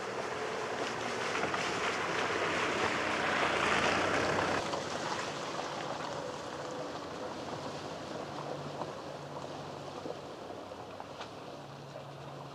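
Land Rover SUV driving through a muddy puddle: its tyres push through the water with a rising splash and hiss that is loudest about two to four seconds in and drops off sharply. Afterwards the engine hums quietly and the tyres crunch and swish over wet gravel as it moves away.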